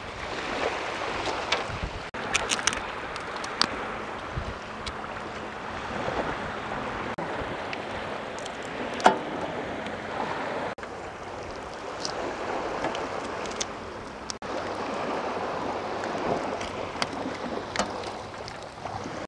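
Sea waves washing onto a beach with wind on the microphone, a steady rush. Scattered small clicks and crackles come from hands handling raw tiger prawns, the sharpest about nine seconds in, and the sound breaks off abruptly a few times.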